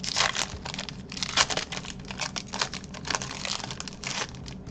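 Foil wrapper of a Pokémon trading-card booster pack crinkling in the hands and being torn open: a dense run of irregular crackles that dies down near the end.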